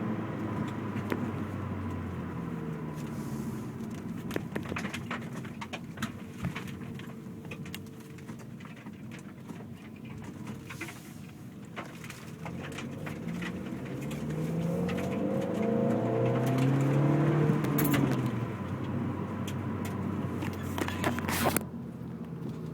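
Kia Forte Koup SX's 2.4-litre four-cylinder engine, fitted with a cold air intake. The revs settle low, climb for a few seconds about 13 seconds in, then fall back. Quick fluttering clicks run through it, the flutter the owner has heard on clutch-in since the intake went on. A sharp click comes near the end.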